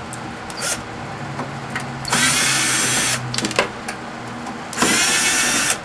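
Power drill/driver running in two spurts of about a second each, backing screws out of a microwave oven's sheet-metal casing, with a few light clicks between.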